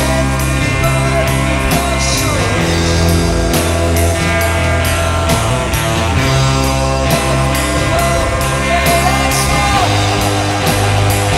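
Loud psychedelic rock music with a steady drum beat and sustained bass.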